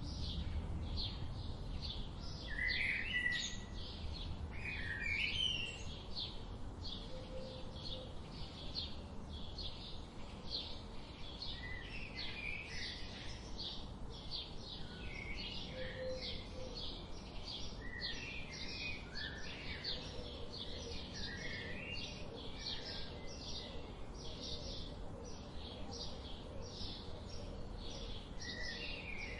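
Birds chirping and singing: a steady run of short, high chirps, about two a second, with lower warbling phrases mixed in, over a faint low background rumble.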